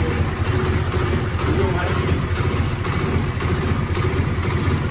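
Suzuki Raider R150 Fi's single-cylinder engine idling steadily.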